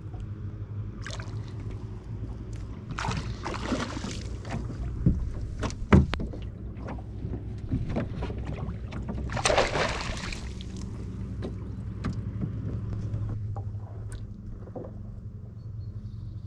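Rowing boat being rowed: irregular splashes of the oars in the water and knocks of wood against the boat, the sharpest knock about six seconds in and a longer splash around ten seconds in, over a steady low hum.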